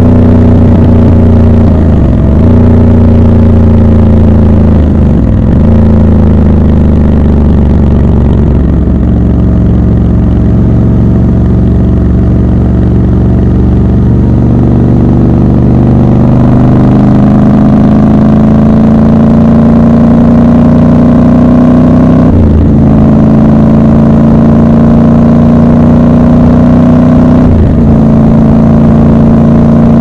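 Triumph Scrambler 1200 XC's parallel-twin engine running at expressway speed, heard from the rider's seat. The engine note dips briefly five times, like gear changes or throttle lifts, and from about halfway it climbs slowly and sounds fuller as the bike pulls through a tunnel.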